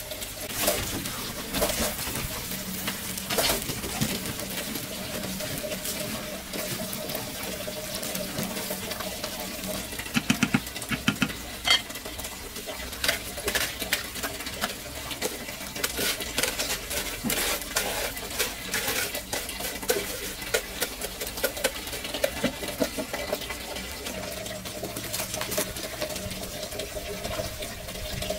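Pots and utensils clinking and knocking amid water sounds, with a quick run of knocks about ten seconds in.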